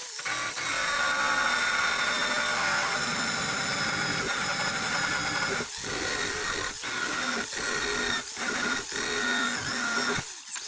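Wire wheel on a power tool scrubbing corrosion off steel truck sheet metal, the motor whining steadily, with about five short breaks in the second half. The wheel is worn down.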